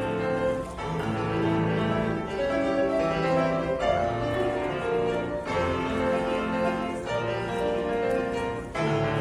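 Solo piano playing a competition piece: chords and melody with held notes changing every half second or so, easing briefly just before the end.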